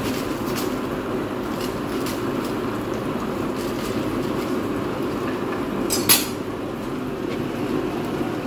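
Steady rush of a lit gas stove burner, with light clicks of steel tongs against the pan and foil cup. One sharp metal clank about six seconds in.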